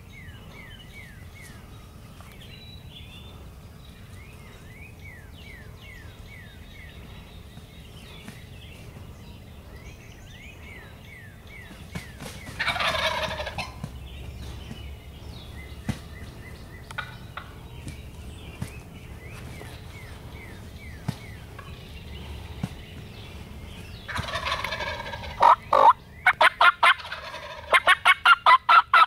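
Wild turkey gobbling, loudly twice: once about halfway through and again near the end. The second gobble is followed at once by a quick run of loud, sharp yelping notes up close.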